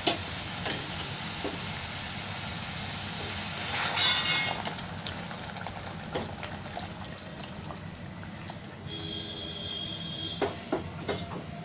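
Hot water poured into a kadai of fried spiced masala in hot mustard oil, sizzling with a loud hissing surge about four seconds in, then settling to a steady hiss. A metal spatula clinks and scrapes against the pan near the end.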